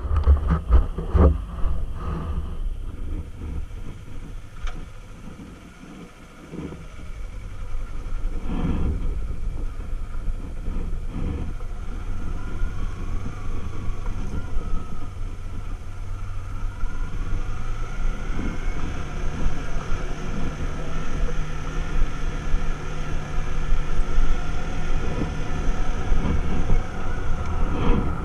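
Sport motorcycle engine running at low speed, with a quieter stretch a few seconds in, then the pitch rising as it accelerates in the second half.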